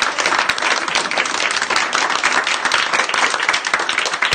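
A small group of people applauding, many hands clapping steadily and densely.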